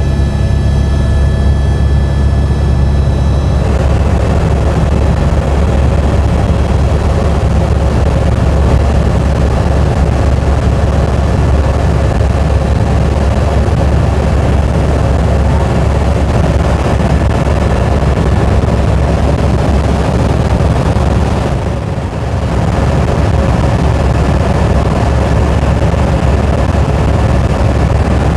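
Helicopter in flight, heard from inside the cabin: a loud, steady drone of engine and rotor, with a brief dip about 22 seconds in.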